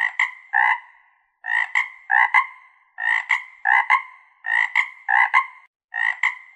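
An animal calling: groups of two or three short calls repeating about every one and a half seconds, with brief silences between the groups.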